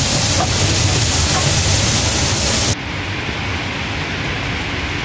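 Ginger, onion, garlic and tomato sizzling in hot oil in a wok, a steady hiss, with a spatula stirring and scraping through them at first. The hiss drops suddenly to a softer level a little over halfway through.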